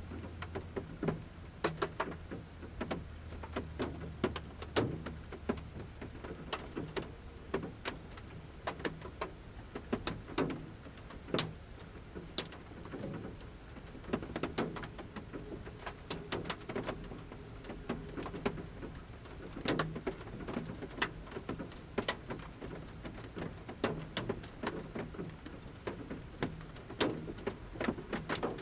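Large rain drops falling from the forest canopy onto a camper van's metal roof, heard from inside: irregular sharp ticks and knocks of varying strength, several a second. A faint low hum runs through the first few seconds.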